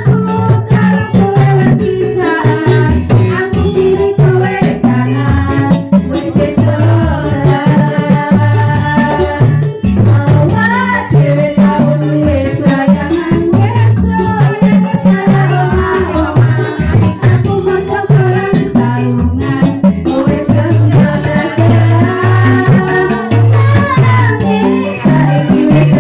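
Live keyboard-backed pop music played loud through a PA: a steady beat with shaker-like rattling percussion, and a woman singing into a microphone over it.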